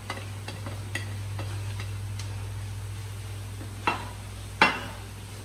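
Plastic spatula clicking and scraping in a frying pan as diced vegetables are tipped in from a plate and stirred. Two louder knocks of utensil against pan come a little before the end, the second the loudest.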